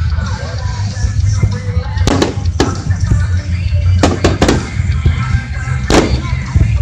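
Aerial firework shells bursting in a starmine barrage: sharp bangs in quick clusters, three about two seconds in, three about four seconds in and one near six seconds. Music plays underneath along with a steady low rumble.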